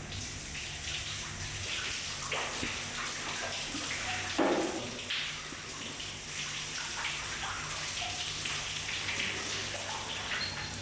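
Water running and splattering, with one brief louder sound about four and a half seconds in.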